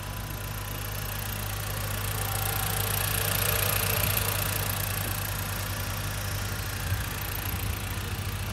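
A 2016 Jeep Compass's four-cylinder engine idling steadily with the hood open. It grows louder about halfway through, then eases off again.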